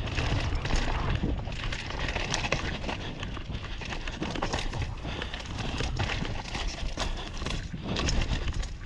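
Downhill mountain bike ridden fast down a muddy forest trail: tyres rolling over dirt and roots with many sharp clicks and rattles from the bike, over a steady low rumble of wind on the camera.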